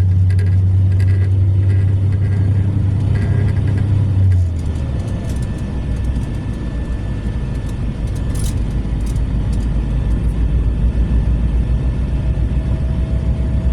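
Mercedes-Benz coach's diesel engine running under load with a strong, steady low drone, which drops to a lower, pulsing note about four seconds in as the engine eases off. A few faint clicks or rattles come near the middle.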